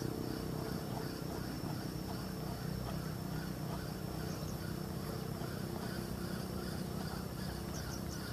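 A steady low motor-like drone with several steady pitched lines in it.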